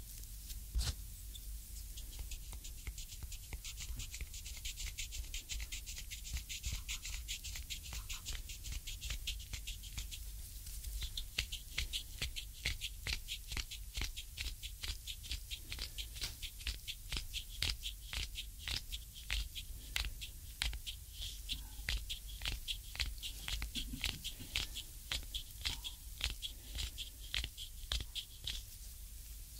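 Hands kneading and pressing a bare foot's sole slicked with massage cream: a quick, uneven series of sticky, squelching skin-on-skin clicks and rubs, close to the microphones. From about a third of the way in the strokes come faster and more regularly.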